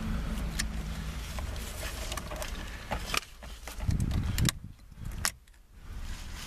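Scattered sharp clicks and light knocks of hands and tools working on steering-wheel parts and plastic trim, over a low rumble, with a brief low thud about four seconds in.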